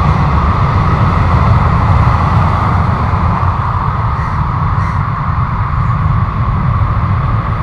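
Jet airliner engines running steadily, with a heavy low rumble underneath.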